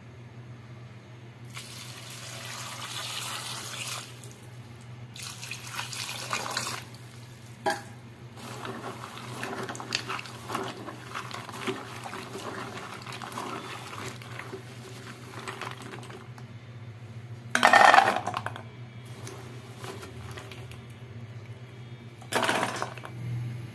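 In-shell peanuts washed by hand in a steel bowl of water: water sloshing and splashing while the wet shells rub and clatter against each other and the bowl. Two louder splashes come, one about three-quarters of the way through and one near the end.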